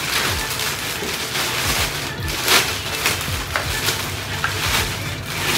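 Clear plastic garment bag crinkling and rustling as a riding jacket is handled and pulled out of it, in irregular crackly bursts.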